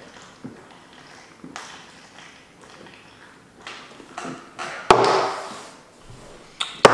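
Beer being chugged from aluminium Budweiser cans: quiet gulping, then a can set down hard on a wooden table about five seconds in, followed by a loud gasping breath out. A second can hits the table near the end, followed by another loud breath.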